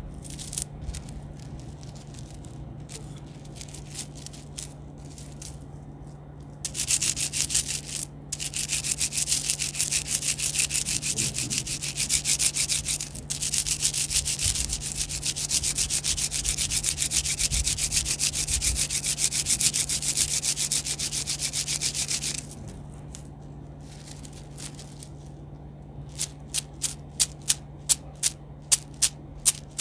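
Close-miked ASMR trigger sounds: sparse light clicks, then about fifteen seconds of fast continuous scratching, then sparse clicks again and, near the end, a run of sharp taps about two or three a second. A steady low hum runs underneath.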